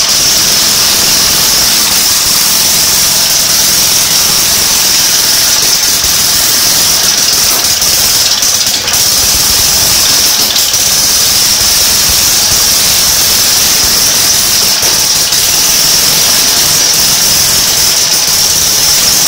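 Small single-cylinder GX160-type stationary engine, converted to full CDI ignition, running steadily and loudly.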